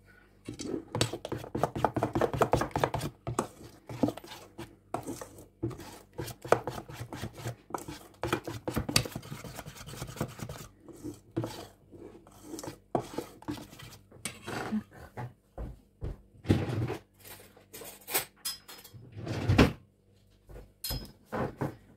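Spoon stirring thick batter in a stainless steel bowl, clinking and scraping against the metal rim and sides, busiest in the first half, then giving way to scattered knocks and taps.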